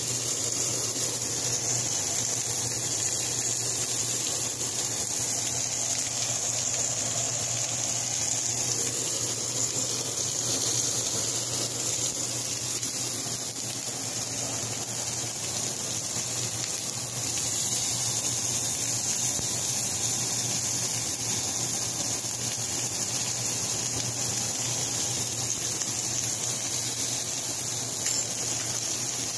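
Lamb pieces sizzling steadily in a hot cast-iron skillet, with a low steady hum underneath.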